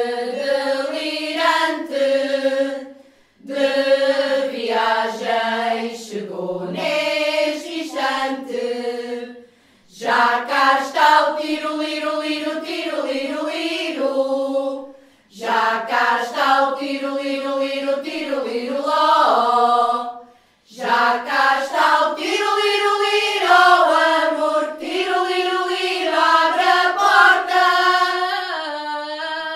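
Women's choir singing cante alentejano a cappella, slow traditional Portuguese part-singing, in long held phrases of about five seconds with brief pauses for breath between them.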